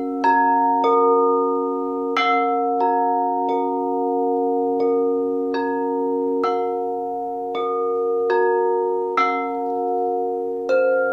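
Quartz crystal singing bowls struck one after another, about a dozen strikes, each leaving a steady ringing tone so that several pitches sound together and overlap.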